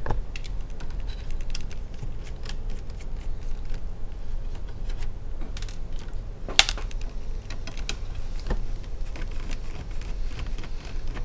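Irregular small clicks and taps of a small screwdriver and screws on the metal frame of an HP Pavilion G6 laptop's LCD screen as the screws are taken out, with one sharper click a little past halfway, over a low steady hum.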